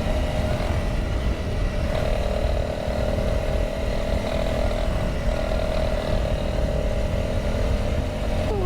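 Single-cylinder Honda dual-sport motorcycle engine running at a steady, fairly high pace while being ridden fast over sand, over a strong low rumble.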